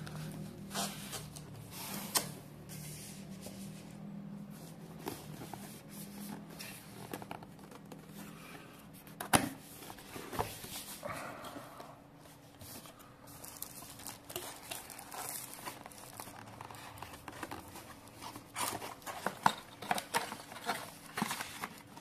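A cardboard product box being opened by hand, its lid lifted off and the paper wrapping and card insert handled: scattered rustling, crinkling and light knocks, with a sharp tap about nine seconds in and a busier flurry of rustling near the end.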